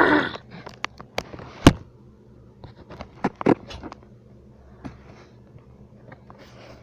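A loud pitched cry or squeak breaks off right at the start, followed by scattered sharp clicks and light knocks, the loudest about a second and a half in, with faint rustling between.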